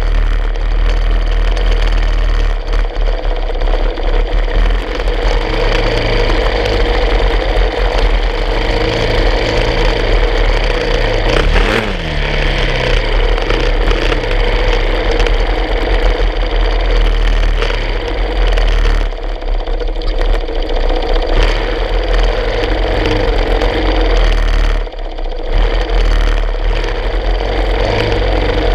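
Motorcycle engine running steadily at low speed, with one quick rev that rises and falls about twelve seconds in and two brief drops in level later on.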